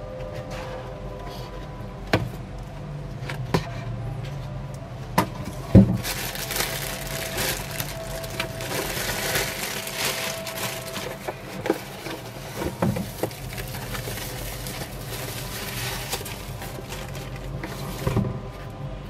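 Cardboard gift box and tissue-paper packing being handled: a few sharp knocks and taps of the lid and box in the first six seconds, then about ten seconds of paper rustling as the packing is pulled aside, and one more knock near the end.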